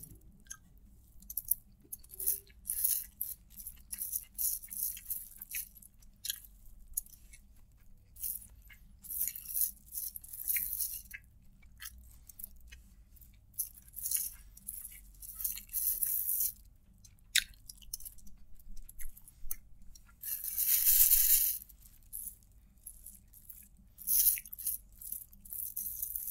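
Crinkling and rustling of a clear plastic food sheet as fingers scrape up the last grains of rice, in short, scattered crackles with quiet gaps between, and one longer, louder rustle about three quarters of the way through.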